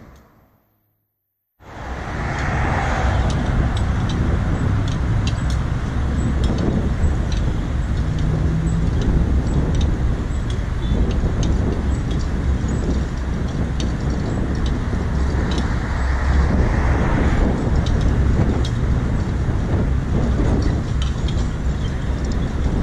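Road traffic with engines idling at a stop: a steady low rumble of engines and traffic. It cuts in after about a second and a half of silence.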